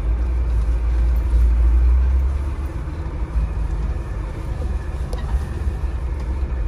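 Mercedes 300 GD's diesel engine running as the G-Class drives slowly through snow, heard from inside the cabin as a steady deep rumble that is a little louder for the first two seconds or so.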